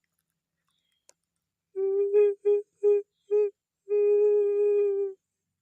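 A steady, flute-like tone, blown as a prank's strange sound: one note, three short notes, then one long held note, all at the same pitch.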